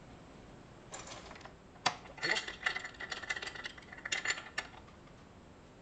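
Step drill being fitted into a drill press chuck: a couple of single metallic knocks, then a run of rapid metallic clicks and rattles lasting about two seconds as the chuck is tightened.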